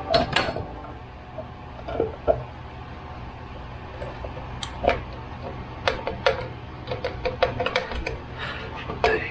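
Irregular light knocks and clicks of objects being handled, over a steady low hum.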